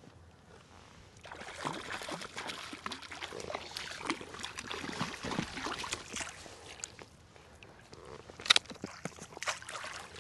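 Water splashing and sloshing as a hooked brown trout thrashes at the surface while being brought in, starting about a second in, with a sharp knock about eight and a half seconds in.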